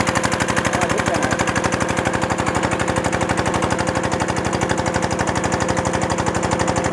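Single-cylinder diesel engine driving an irrigation water pump, running steadily at speed with a fast, even putter and a steady hum.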